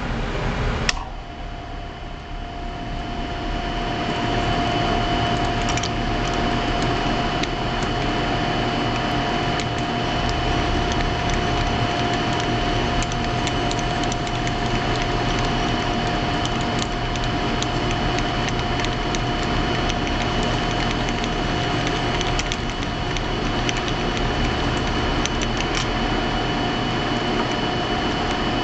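Machine tool running and cutting brass: a steady whine with a fainter, higher tone over a dense cutting noise with scattered small clicks, building up over the first few seconds.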